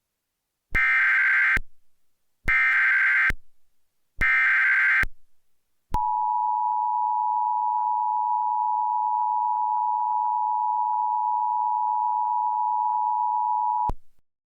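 Emergency Alert System tones: three short bursts of SAME header data, a digital warble, encoding a Civil Danger Warning. They are followed by the steady two-note attention signal, which holds for about eight seconds and then cuts off. Together they announce that an emergency alert message follows.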